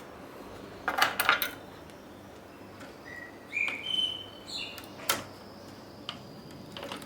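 Clicks and a brief clatter of small hard parts being handled during laptop disassembly, loudest about a second in, with a sharp single click a little after halfway. In between comes a short run of high-pitched chirps stepping up in pitch.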